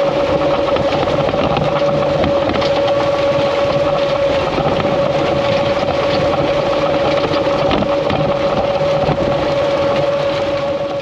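Tractor engine running steadily under load, with a strong steady whine over the engine's hum; the sound drops away right at the end.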